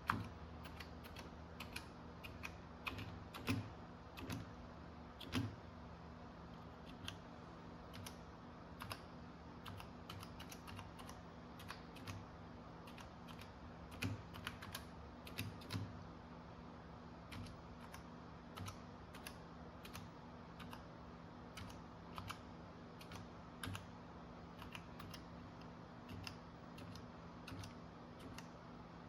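Apple II Plus keyboard keys pressed one by one to test them: irregular single clicks, sometimes in quick clusters and sometimes a second or more apart, over a steady low hum.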